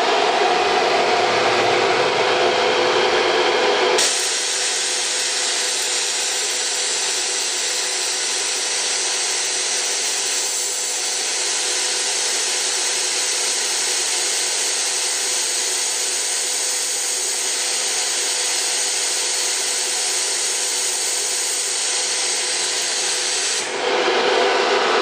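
ATC CNC router's 9.6 kW air-cooled HSD spindle running and cutting, a steady loud machining noise with a hum in it. About four seconds in, the sound changes abruptly to a brighter, thinner hiss, and it changes back shortly before the end.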